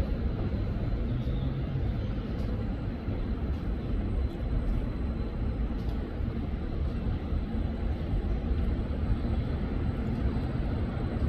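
A train's steady rumble at the station, with no clear rise or fall.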